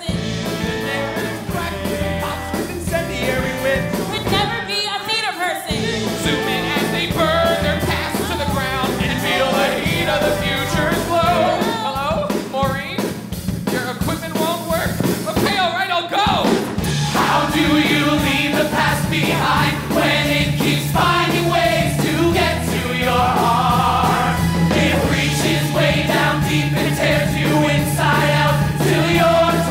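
Live rock-musical number: several voices singing together over a pit band of keyboards, guitars, bass and drums, the sound growing fuller about halfway through.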